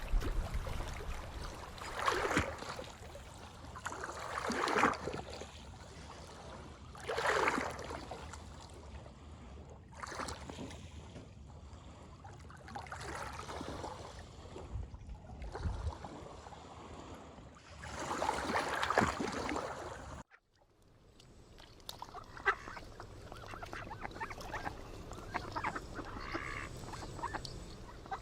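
Waterfowl calling: several loud, rough honking calls a few seconds apart over a steady outdoor background. About two-thirds of the way through, this cuts off to a quieter scene with faint scattered chirps and clicks.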